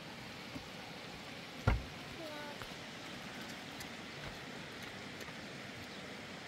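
Steady outdoor hiss with a single sharp, low thump a little under two seconds in, followed by a brief vocal sound.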